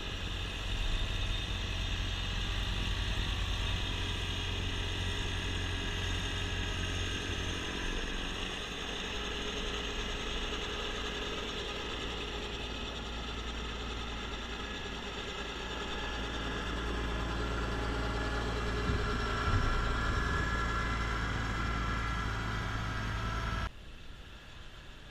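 Kubota B2650 compact tractor's three-cylinder diesel engine running steadily close by, together with its front-mount snowblower. Near the end the sound drops suddenly to a fainter, more distant engine.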